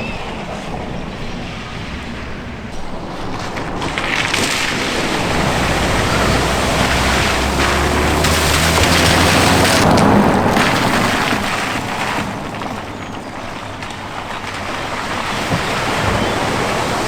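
A car driving through a deep flooded ford, water splashing and surging around it. The splash builds about four seconds in and eases after about twelve, with the engine's low steady hum underneath; the water rises again near the end.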